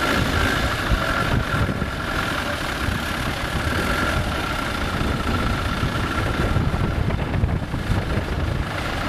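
Land Rover Defender engine running steadily under load as the four-by-four is pulled on a tow rope out of a stream bed, with a steady high whine over roughly the first four seconds.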